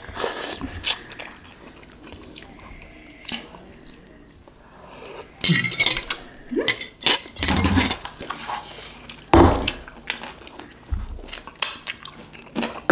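A metal fork clinking against a small ceramic bowl during eating, with slurps and sips of noodle soup. Scattered clicks and clinks, busiest in the second half.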